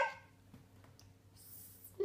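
A young child's held sung note trails off, then a pause of near quiet, with a faint click about a second in and a faint hiss near the end.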